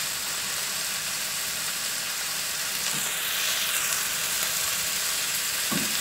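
Shrimp and chicken pieces sizzling steadily in hot oil in a wok.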